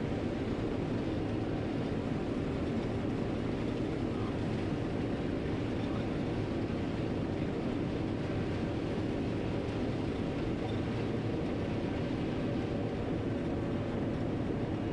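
John Deere 9500 combine running steadily while harvesting corn: a constant, even drone of the diesel engine and threshing machinery, heard from inside the cab.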